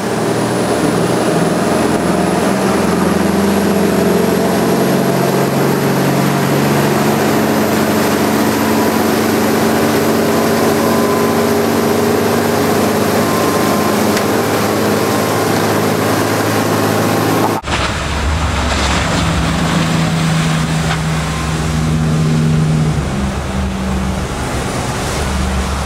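Sunseeker Portofino 40 motor cruiser running at speed: a steady engine drone over wind and rushing water. About two-thirds of the way in, the sound changes abruptly to a deeper drone.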